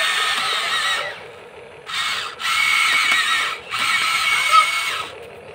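Electric motors and gearboxes of a Huina remote-control excavator whining in several bursts, each about a second long, as the boom, arm and bucket move.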